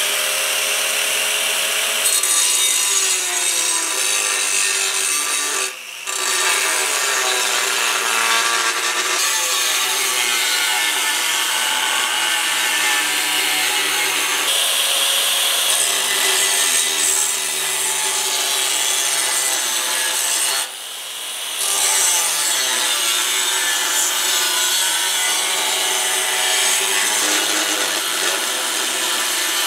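Angle grinder with an abrasive cut-off wheel cutting through scrap steel plate: a continuous grinding with a wavering whine as the wheel loads, broken by two short let-ups, about six seconds in and again about two-thirds of the way through.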